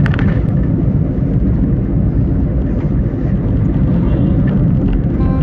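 Steady low rumble of a car on the move, heard inside the cabin.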